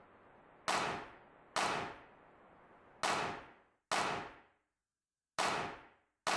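Six sharp percussive hits at uneven intervals, each ringing out for about half a second, with dead silence between them, as in a stop-time break in background music.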